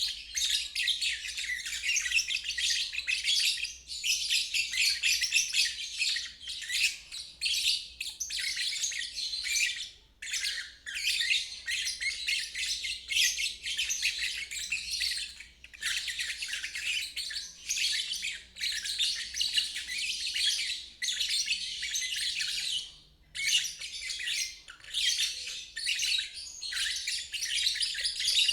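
Lovebird ngeriwik: a fast, unbroken stream of high chirps, sung in phrases several seconds long with brief pauses between them.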